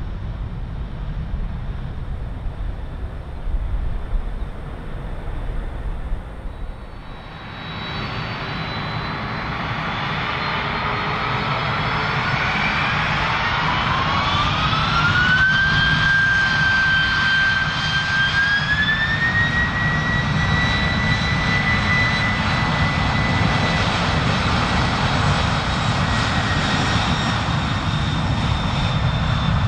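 Boeing 767-300ER's General Electric CF6-80C2 turbofans spooling up to takeoff thrust. A whine climbs in two steps over several seconds, then holds steady over a broad jet roar. For the first seven seconds there is only a low rumble, before the spool-up begins.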